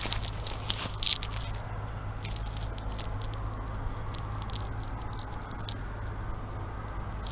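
Soybean pods crackling and clicking as they are crushed and shelled by hand, thickest in the first second and a half and then in scattered clicks, over a steady low rumble. The pods are hard to hull and the beans soft and gummy, not yet dry enough to harvest.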